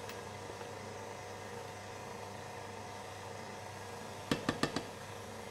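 A steady low hum, then about four seconds in, four quick sharp knocks as a spatula is tapped against the rim of a tub of crème fraîche to shake the cream off.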